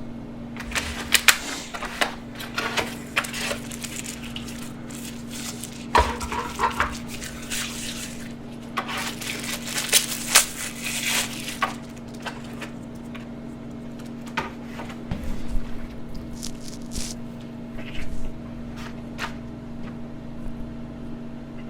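Close-miked eating of fried chicken tenders: irregular bites, crunching and wet chewing, with a denser run of crunching about ten seconds in, over a steady low hum.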